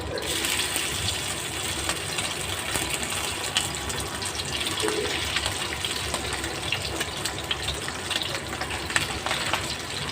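Stuffed foli fish frying in hot oil in a pan: a steady sizzle with scattered pops and crackles, which rises sharply right at the start.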